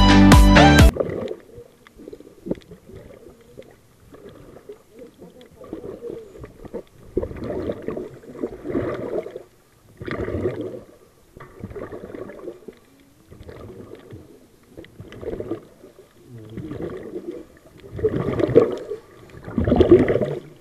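A scuba diver breathing underwater through a Mares Rover regulator: irregular rushes of exhaled bubbles gurgling every second or two, louder towards the end. Electronic music cuts off about a second in.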